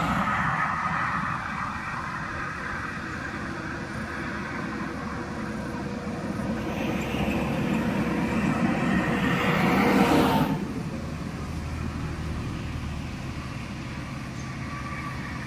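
Traffic on a concrete toll road: tyre and engine noise from passing cars and trucks. One vehicle passes close, growing louder over several seconds to the loudest point about ten seconds in, then falls away abruptly.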